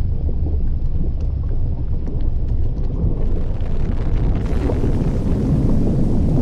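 An erupting volcano's crater vent rumbling: a loud, steady deep roar with a few faint crackling ticks, and a brighter hiss joining about three seconds in.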